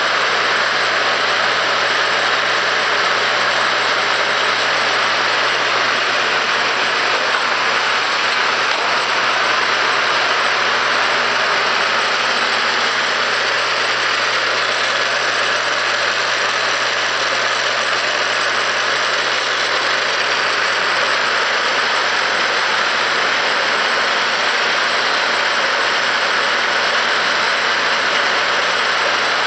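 Electric chain-lift motors and chains of a K'nex roller coaster running steadily: an even mechanical whir over a low hum.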